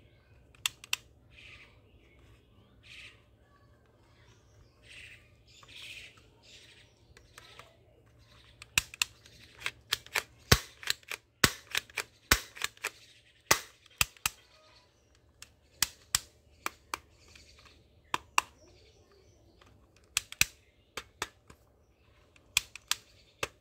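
Plastic toy Desert Eagle pistol being worked by hand: sharp plastic clicks from its slide and mechanism, coming in clusters and growing busier partway through, with softer sliding scrapes in the first few seconds.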